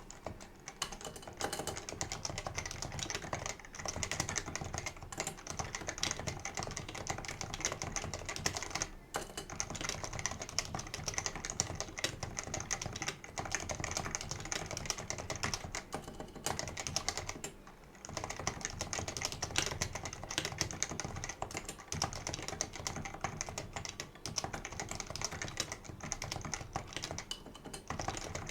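Fast, continuous typing on a Leopold 660C keyboard with unlubricated Topre switches: a dense stream of keystrokes that pauses briefly a few times.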